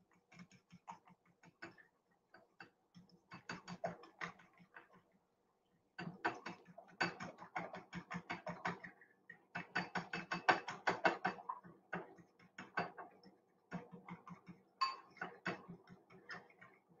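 Fork clicking rapidly against a ceramic bowl as eggs are whisked, in spurts of a second or two with short pauses.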